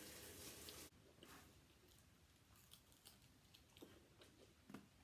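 Faint chewing of crispy fried chicken: a scattering of soft crunches and clicks. It follows a steady hiss that stops abruptly about a second in.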